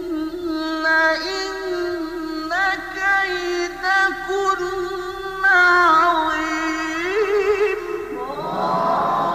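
A male reciter chanting the Quran in melodic tajweed style, drawing out long held notes with wavering ornaments. Near the end, a wash of many voices rises together from the listeners.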